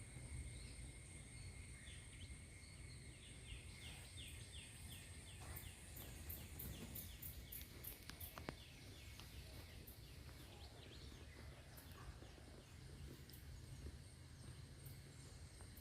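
Faint outdoor ambience with a low rumble and steady high whines. For several seconds in the middle an animal, bird or insect, gives a run of short chirps, about two to three a second.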